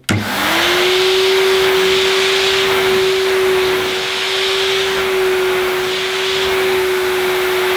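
Miele De Luxe S126 stick vacuum cleaner switched on, its motor spinning up within half a second to a steady whine over a loud rush of air, as it runs over carpet.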